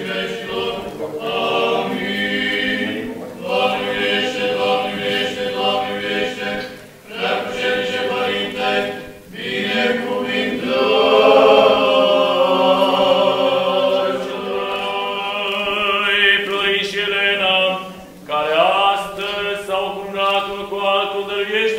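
Orthodox church chant from several voices together, singing slow, held lines with short breaks between phrases.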